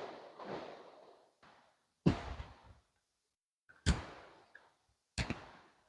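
Three sharp thuds about one and a half seconds apart, each dying away over half a second, with dead silence between: the slow, careful steps of a hiker on the trail.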